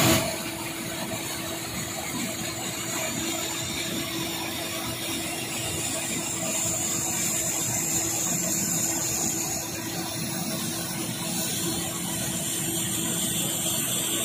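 Belt conveyors carrying wood chips running: a steady machinery hum with an even hiss, unchanging throughout.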